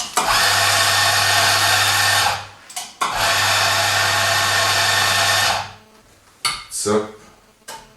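Ceado espresso grinder's motor grinding coffee beans in two runs of about two and a half seconds each, with a steady low hum under the grinding noise. A few short knocks follow near the end.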